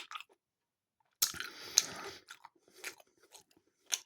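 Person biting into and chewing a mini pork pie with pickle close to the microphone: silence, then a bite about a second in, followed by short wet mouth clicks of chewing.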